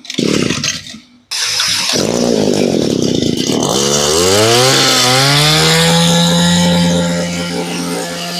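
Echo 24 cc two-stroke brush cutter being test-started: a pull of the starter cord, the engine catches about a second in, revs up with a rising pitch a few seconds later, then runs steadily at speed.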